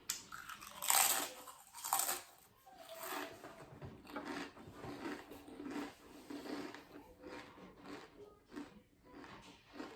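Pringles potato crisps being eaten: two loud bites about a second apart, then steady crunchy chewing.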